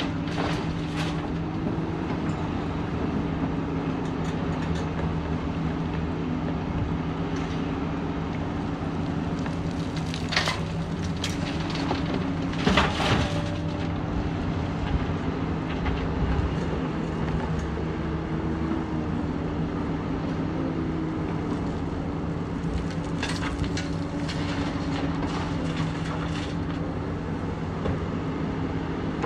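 Excavator diesel engine running steadily while the machine loads a steel dump truck, with crashes of rock spilling into the truck bed twice near the middle, the second the loudest, and a run of clattering dumps later on.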